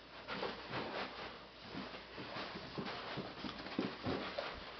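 Faint, irregular scuffling, rustling and light taps of a puppy scrambling on carpet while a towel is flapped and dragged around it.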